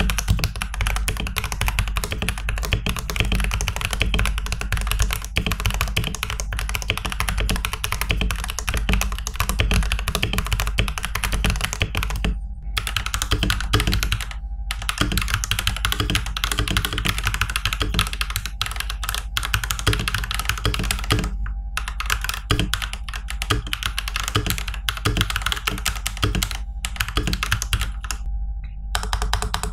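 Fast, continuous typing on a TM680 65% mechanical keyboard with a rotary knob, a typing-sound test, broken by a few brief pauses. The test compares the keyboard stock and after modding, which means lubed stabilizers shimmed with masking tape, dampening layers under the switches and EVA foam in the case to cut echo.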